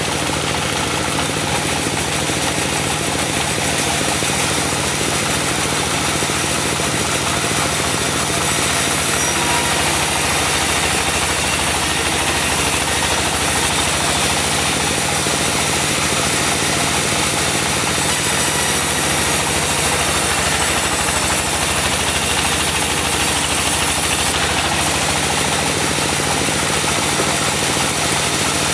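Diesel-engine-driven portable band sawmill running steadily, its blade sawing mahogany. The engine makes a low steady drone under a bright, continuous hiss, and the hiss shifts in level a few times.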